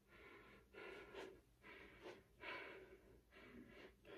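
A person breathing hard and fast, winded after a long stretch of jumping rope: faint, quick breaths about two a second.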